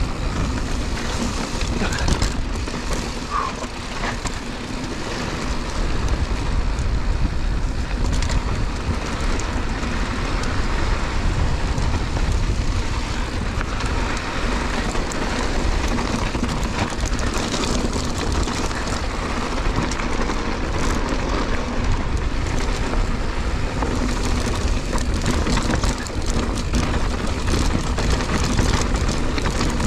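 Mountain bike descending a loose, sandy gravel trail: tyres crunching over gravel and the bike rattling in many short clicks over a steady low rushing rumble.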